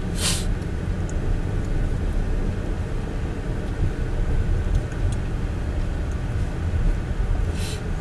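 Car interior driving noise: a steady low rumble of engine and tyres rolling slowly over a rough, patched concrete road. Two short hissing bursts come, one just after the start and one near the end.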